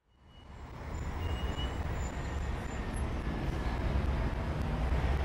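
Steady low rumble with an even hiss, fading in from silence over about the first second, with a few faint, short, high chirps above it.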